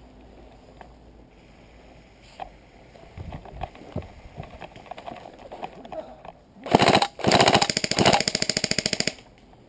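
Airsoft electric gun firing full-auto, a rapid rattle in two or three bursts close to the microphone, after a few seconds of scuffing and knocking.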